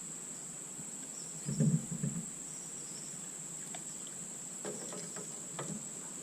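Steady high-pitched insect chorus, with a cluster of low knocks about a second and a half in and a few fainter taps later on.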